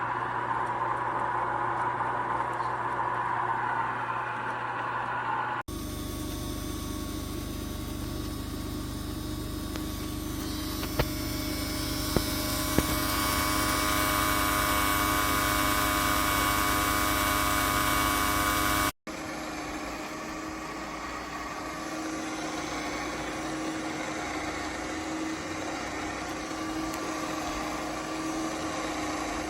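Electric ice cream maker running, a steady motor hum with whining tones. The hum changes abruptly twice as the recording cuts between takes, and a few short clicks come near the middle.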